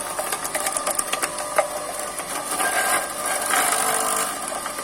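Homemade grater driven by an old water-pump electric motor, running steadily with a whir, with scattered ticks and clatters as hard young guava is grated and pieces bounce around.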